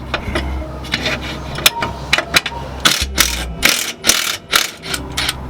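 Socket ratchet clicking in short quick runs with metal clinks as a suspension bolt is worked loose; the runs come thickest in the second half.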